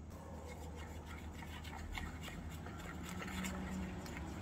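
A small utensil scraping and clicking irregularly against a small steel bowl as dry ingredients are mixed.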